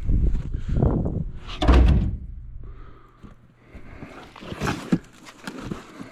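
Deep snow crunching and thumping in three heavy strokes in the first two seconds, then lighter scattered crunches with another thump near five seconds.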